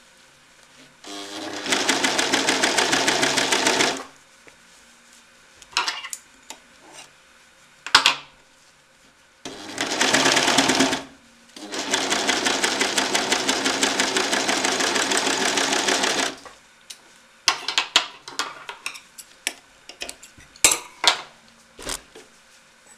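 Overlocker (serger) running in three bursts as it stitches a fabric edge, with a rapid, even stitching rhythm. The longest burst lasts about four and a half seconds. Between the bursts and after them come scattered sharp clicks and knocks of handling.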